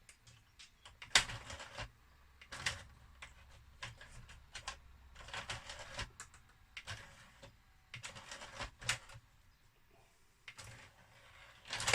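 Loading-tray mechanism of a Mission PCM7000 CD player: its small drive motor runs with irregular clicking and rattling, a lot of motor noise that the owner suspects comes from a slack drive belt. A low steady hum runs from about two to six seconds in.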